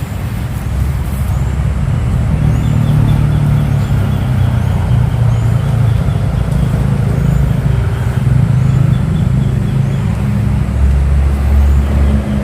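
A steady low engine drone that lasts throughout, its pitch shifting slightly and deepening near the end.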